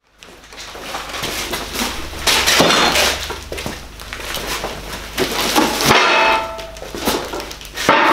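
Knocks, thuds and clatter from handling heavy cardboard boxes that hold the parts of a 20-ton hydraulic shop press, with a short ringing tone about six seconds in.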